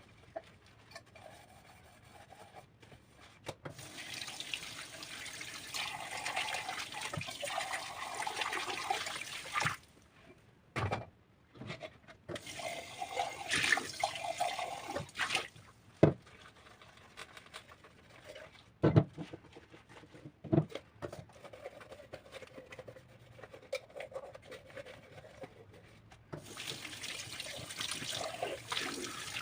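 Water running from a kitchen tap in stretches, turned on and off several times, with a few sharp knocks in the pauses.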